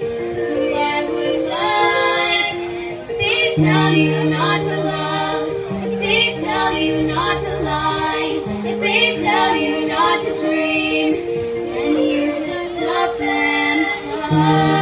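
Singers performing a song over instrumental accompaniment, with held bass notes that change every second or two beneath the voices.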